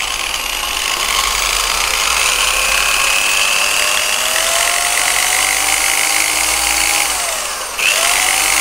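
JLD electric rotary car polisher running with no load, the pad spinning freely. Its motor whine rises steadily in pitch as the speed is turned up, drops briefly about seven seconds in, then climbs again near the end.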